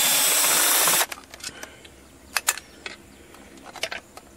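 A loud burst of steady rushing noise lasting about a second that cuts off abruptly, then scattered light clicks and taps of tools and small chainsaw parts being handled during disassembly.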